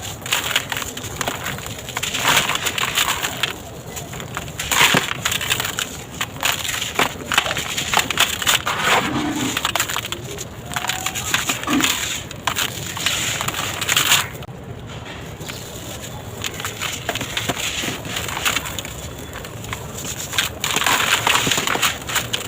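Dry sand-and-cement concrete blocks being crushed and crumbled in a tub: gritty crunching in repeated bursts with sharp cracks, easing off for a few seconds in the second half before a last loud burst near the end.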